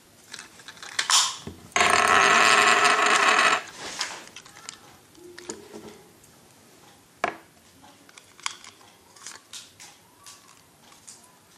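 Plastic clicks, taps and rattles of a Beyblade launcher and grip being handled and fitted together. About two seconds in comes one loud, steady whirring buzz lasting nearly two seconds.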